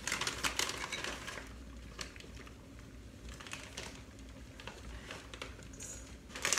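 Plastic bag of chopped walnuts crinkling as the nuts are poured into a glass measuring cup, with a patter of small clicks as they land. Busiest in the first second or so, with scattered clicks after and a sharper clink near the end.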